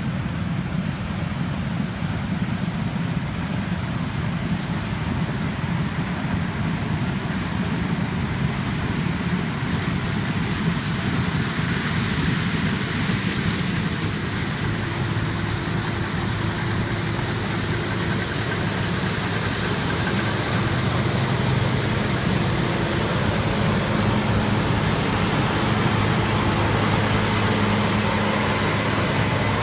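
Combine harvester running steadily in corn, a dense mechanical drone. A steady low hum comes in about halfway, and the sound grows a little louder in the last third.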